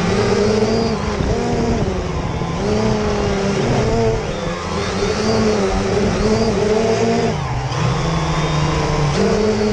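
Quadcopter drone's electric motors and propellers buzzing in flight, the pitch rising and falling as the throttle changes, with a brief dip about seven and a half seconds in.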